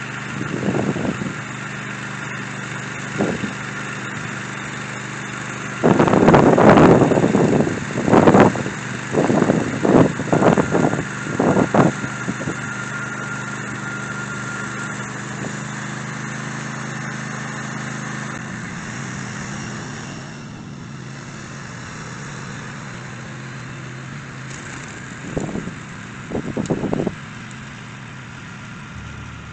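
Small engine of a garden cultivator running steadily, with louder uneven surges about six to twelve seconds in and again briefly near the end.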